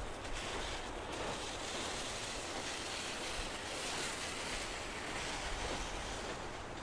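Waves washing steadily on a shore: a constant noisy hiss that swells and eases slightly.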